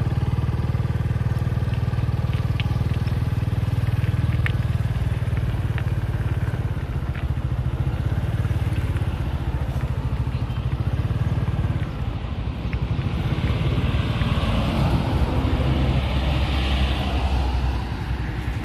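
A vehicle engine, likely a motorbike, running steadily close by with a low, fast-pulsing hum. Road traffic passes, swelling louder about two-thirds of the way through and fading near the end.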